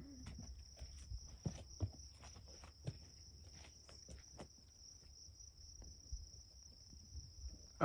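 Faint, steady high-pitched insect trill, unbroken throughout, over a low rumble of wind on the microphone and a few faint scattered clicks.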